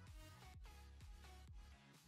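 Faint background music with a deep bass line and a repeating beat.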